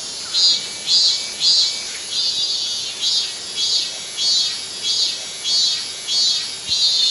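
Cicadas singing: a steady, high, shrill buzz that swells and fades in pulses about twice a second.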